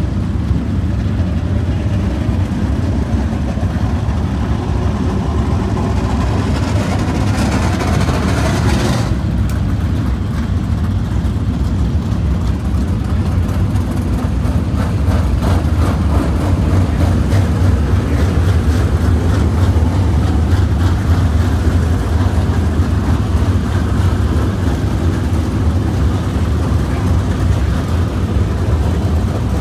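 Dirt-track race car engines running at speed around the track, a loud, steady engine drone. A brighter, hissier stretch builds about six seconds in and cuts off sharply around nine seconds.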